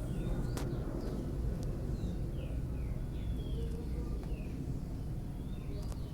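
Birds calling outdoors: a run of short, high, falling chirps, about one or two a second, over a steady low rumble, with a single click about half a second in.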